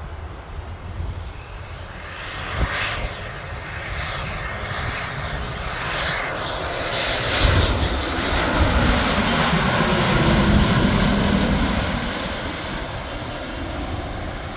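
Twin-engine business jet on landing approach with its gear down, passing low overhead. The engine roar grows, is loudest about eight to eleven seconds in, then fades as the jet heads on toward the runway.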